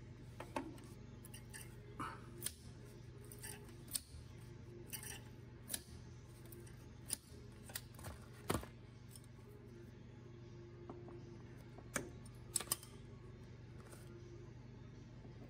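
Irregular sharp metal clicks and snips of hand tools working stainless steel safety wire on an aircraft brake caliper's bolts: safety-wire pliers and wire cutters clicking and clipping, with tools being picked up and set down. A steady low hum runs underneath.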